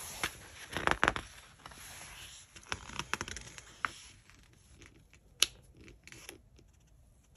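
Pages of a paperback book being turned and smoothed flat: paper rustling and crinkling, loudest about a second in, with scattered light taps and one sharp click about halfway through.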